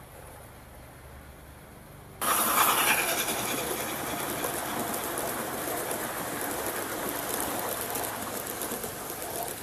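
O gauge model train (a Gresley A3 locomotive hauling a rake of coaches) rolling past close by, its wheels making a steady rattling run on the track. It starts abruptly about two seconds in, loudest just after it begins, with a lower background before it.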